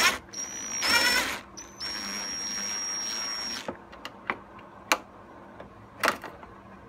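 DeWalt cordless drill with a socket backing out a 7 mm screw from a car's fender liner: the motor whines in short bursts, then runs steadily for about two seconds. A few sharp clicks follow.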